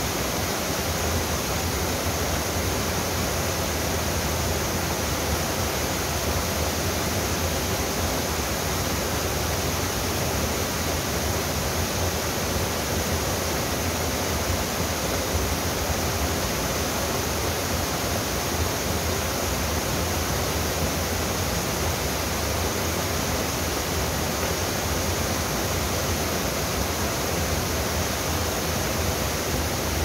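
Wide, low waterfall spilling over a rock ledge into a pool: a steady, unbroken rush of falling water.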